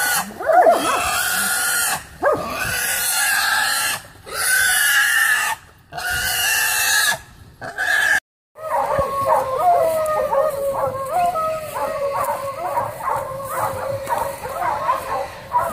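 Feral hog squealing in long, repeated shrill squeals as it is bayed and grabbed, with catch dogs mixed in. After an abrupt cut about eight seconds in, a run of shorter, quicker squeals follows.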